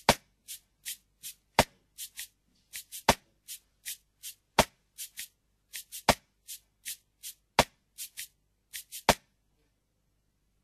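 A drum beat on its own, the closing bars of a rap song. A loud sharp hit comes about every one and a half seconds, with lighter, higher ticks between. The beat cuts off suddenly about nine seconds in.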